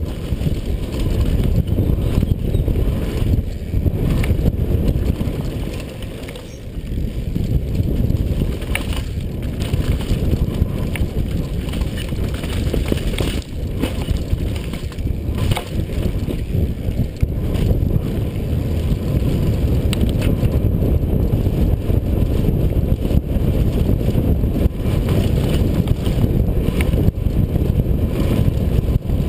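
Downhill mountain bike ridden fast over a dirt forest trail, heard through a helmet camera's microphone: steady low wind buffeting and tyre noise, with frequent clicks and knocks from the chain and bike over bumps. It dips briefly about six seconds in.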